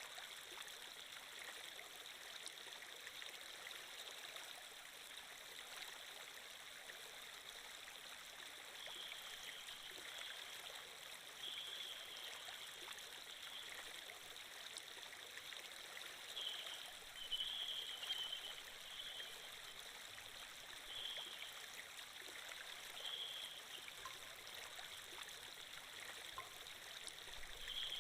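Flowing-water sound effect like a running stream, a steady soft rush with short, slightly louder moments every second or two, loudest a little past halfway.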